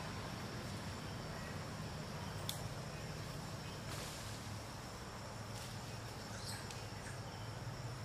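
Outdoor ambience: a steady high-pitched insect drone over a low hum, with a few faint clicks.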